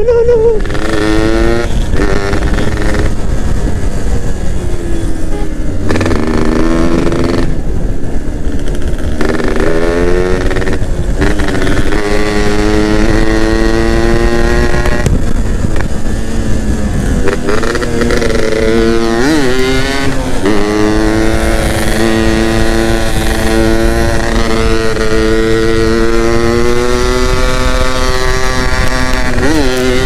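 Yamaha F1ZR's 110 cc single-cylinder two-stroke engine under way, its pitch climbing as it pulls and then dropping back several times as the throttle is rolled off and on, heard from the rider's seat.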